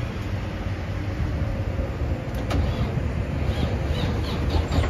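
The diesel engine of a 2004 Volvo VN semi truck turning over and starting, with a steady low rumble. It is starting on a battery whose corroded positive terminal has just been cleaned, a connection that was still sparking and weak.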